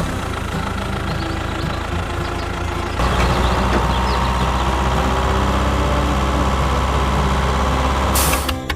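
Truck-like engine running steadily, getting louder with a deep hum about three seconds in, with a short hiss near the end.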